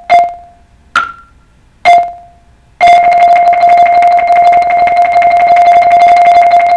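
Mallet keyboard percussion played solo: three single struck notes, the middle one an octave higher and the others ringing briefly, then about three seconds in a fast, even roll on one note, held as the etude's final sustained tone.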